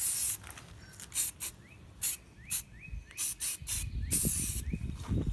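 Aerosol spray paint can spraying in a run of short, sharp hissing bursts, about a dozen, after a longer spray that ends just after the start, as paint is laid onto water for hydro dipping.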